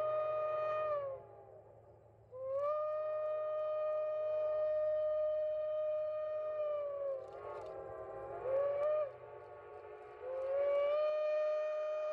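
Steam locomotive whistle blowing long blasts on one steady pitch: one ends about a second in, a second lasts about five seconds, and a third starts near the end. Between the last two, a shorter chord-like whistle sounds.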